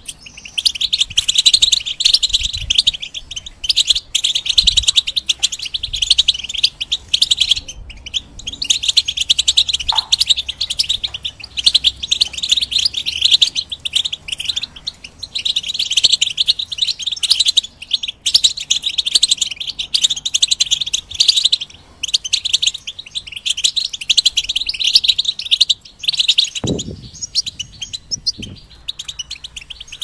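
European goldfinch singing: long runs of rapid, high twittering notes broken by short pauses every few seconds.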